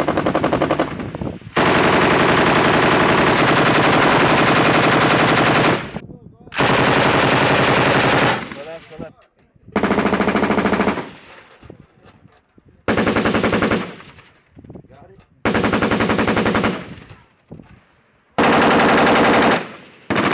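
Belt-fed machine gun firing in bursts of rapid automatic fire: a long burst of about four seconds near the start, then about six shorter bursts of roughly a second each.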